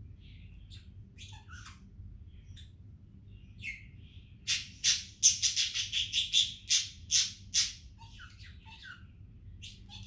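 Pet budgerigar chirping in short scattered calls, then breaking into a loud run of rapid harsh squawks for about three seconds near the middle, before going back to scattered chirps.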